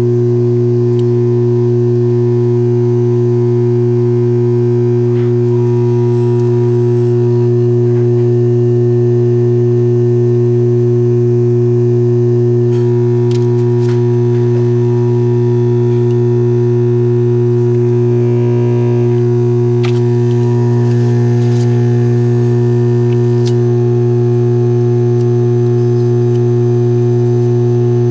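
Dental lab vibrator running with a steady low electric buzz while dental stone is trickled into a triple tray impression on it.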